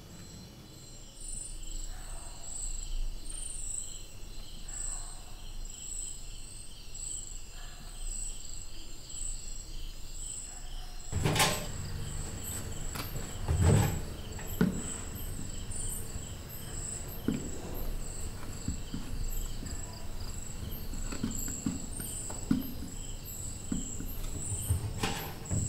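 Crickets chirping steadily. About halfway through, a sharp click, then knocks, thumps and rustling as laundry is pulled from a front-loading washing machine into a plastic bucket.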